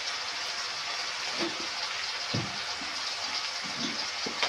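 Steady sizzling hiss of jackfruit, potato and onion frying in oil in a kadai, with a few soft knocks in the second half.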